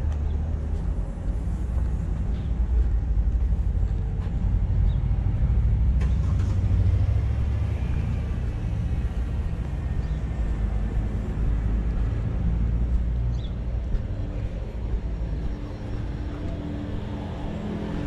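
City street traffic: a motor vehicle's low engine rumble, louder for several seconds in the middle and easing towards the end, with a few faint clicks.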